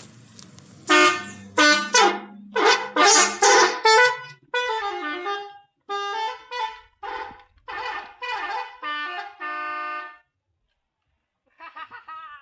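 Indonesian intercity bus's 'telolet' musical horn playing a tune. It gives several loud horn blasts over the first few seconds, then a quicker run of shorter notes with pitch slides, and stops about ten seconds in.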